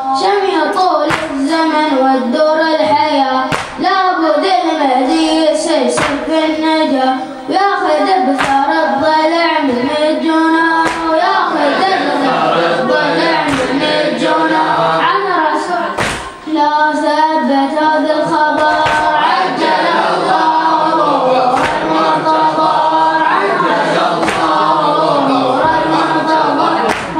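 A boy's voice chanting an Arabic mourning elegy into a microphone, melodic and unbroken, with sharp slaps at irregular intervals.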